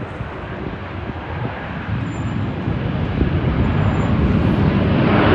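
Airbus A320 airliner's jet engines coming in to land, a rushing noise that grows steadily louder and peaks near the end.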